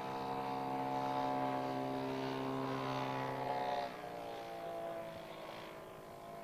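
The 3W-106 two-stroke gas engine of a half-scale Nieuport 11 model biplane running in flight, a steady buzzing drone. About four seconds in the engine note changes and becomes clearly quieter as the plane comes over into a dive.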